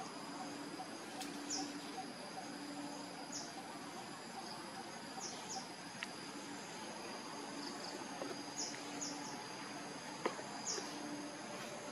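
Steady high-pitched insect drone from the surrounding vegetation, with short high chirps repeating every second or two and a low hum that comes and goes. A single sharp click about ten seconds in.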